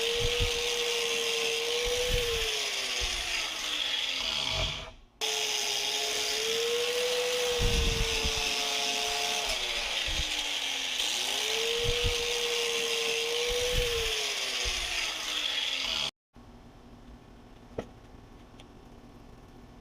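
An electric power tool motor spins up, holds speed and winds down three times, over a steady gritty hiss like abrasive or wire-brush work on metal. About three-quarters of the way in it cuts off to quiet room tone, with a single click.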